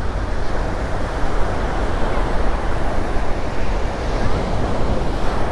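Small surf breaking and washing up onto a sandy beach in a steady wash, with wind rumbling on the microphone.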